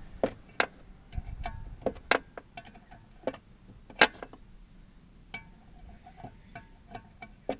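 Sharp metal clicks and clinks at an irregular pace, a few of them loud, as a 9/16 spanner works the loosened blade bolt on a Victa lawn mower's cutting disc.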